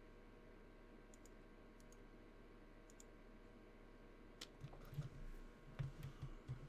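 Faint computer mouse clicks over near-silent room tone: a few scattered clicks at first, then a quicker cluster of clicks with soft low thumps in the last couple of seconds.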